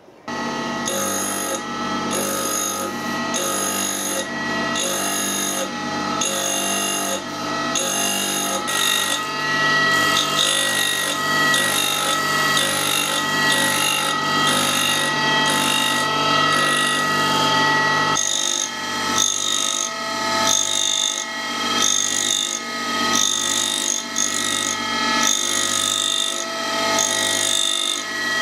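Small tool-and-cutter grinder starting up and grinding a quarter-inch high-speed-steel screw-cutting tool to a 55-degree point. The motor runs with a steady hum, and a rasp pulses about once a second as the tool is swept across the wheel.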